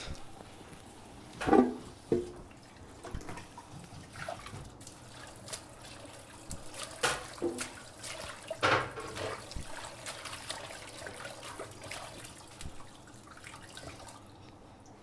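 White radishes being washed by hand in water: irregular splashing and dripping with a few sharper knocks, the loudest about one and a half seconds in.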